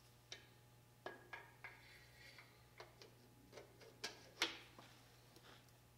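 Faint scattered clicks and light taps as a piston ring compressor is handled and coated with oil, about eight small knocks, the loudest about four and a half seconds in, over a faint low hum.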